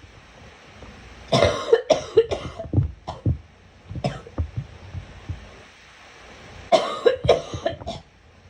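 A girl coughing in two fits of several quick, sharp coughs, the first starting about a second in and the second near the end, with a few lighter coughs between them.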